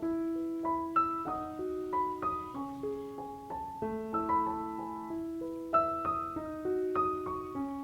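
Background piano music: a gentle melody of single notes over sustained lower notes.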